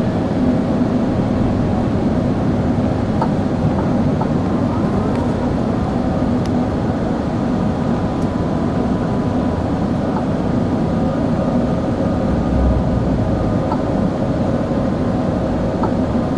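Steady cabin noise inside an Airbus A380 airliner in flight: a dense rumble of engines and airflow with a faint steady hum. There are a few light clicks, and a dull low bump comes about twelve seconds in.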